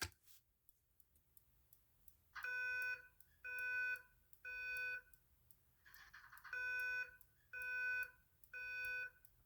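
Simplex voice-evacuation fire alarm speaker sounding the temporal-3 evacuation tone, set off by a manual pull station. It starts about two and a half seconds in: two sets of three half-second beeps about a second apart, with a pause of about a second and a half between the sets.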